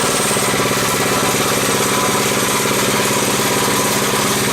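Small single-cylinder minibike engine running steadily just after its first pull-start.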